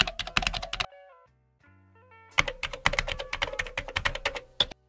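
Rapid computer-keyboard typing clicks in two runs: a short burst at the start and a longer run from about two and a half seconds in. A few short musical notes step between them.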